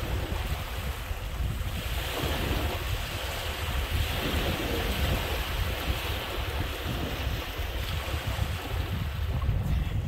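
Strong wind buffeting the microphone with a low rumble, over small lake waves washing and lapping on a sandy shore.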